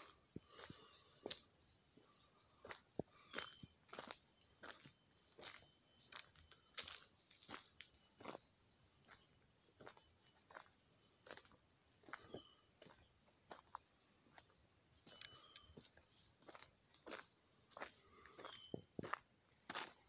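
A steady, high-pitched insect chorus, with footsteps on a dirt road coming irregularly, about one a second.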